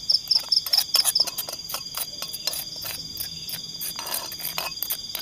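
Irregular clicks and knocks from cooking over a wood fire, with a spoon stirring in a pan; they are loudest in the first second. Under them, insects trill steadily on one high note, pulsing in the first second or so.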